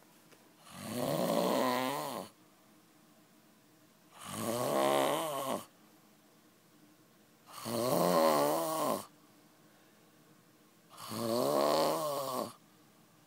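A man snoring: four long, wavering snores, one about every three and a half seconds, with quiet pauses between.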